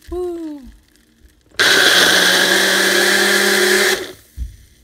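Single-serve cup blender crushing ice with lemonade and tea into a slush: the motor runs in one steady burst of about two and a half seconds, a loud whir with a steady hum under it, then cuts off.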